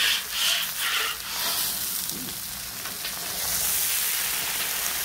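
A scrub brush is worked back and forth across the hot, wet steel top of a Blackstone griddle, with the water sizzling off as steam. About two scrubbing strokes a second are heard at first, then a steady sizzling hiss that grows stronger about three and a half seconds in.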